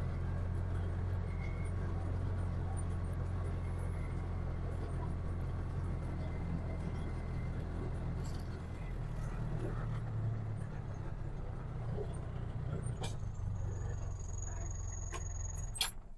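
A motor vehicle's engine running steadily with a low hum, its note changing a little about halfway through, then cutting off suddenly at the end.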